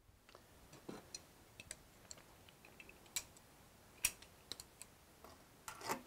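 Hand tools clicking and scraping against the metal of a drilled-out Defiant deadbolt cylinder as its anti-drill hard plate is worked loose. Faint, scattered sharp clicks, the loudest about four seconds in, with a short run of scraping clicks near the end.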